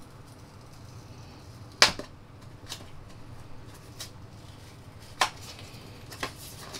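Paper earbud packaging being handled as its outer sleeve is worked off the box: about five short, sharp clicks and rustles, the loudest about two seconds in. The sleeve and box are made of Sony's plastic-free blended paper, from bamboo, sugarcane fibre and recycled paper.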